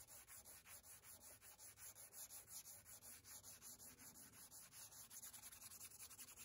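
Hand sanding a wooden table edge with a 120-grit sanding pad, rubbing the old finish off. It makes faint, quick, even scraping strokes, about five a second.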